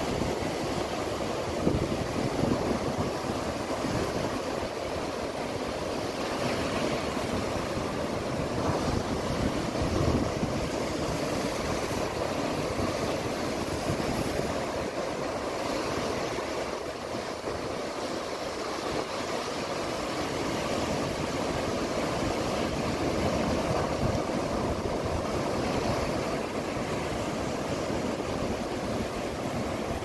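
Heavy typhoon-driven surf breaking continuously: a steady rush of crashing waves and foam, with wind buffeting the microphone in uneven gusts.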